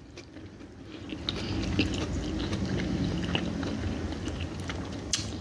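A person chewing a mouthful of food with small wet clicks, and a sharper click near the end.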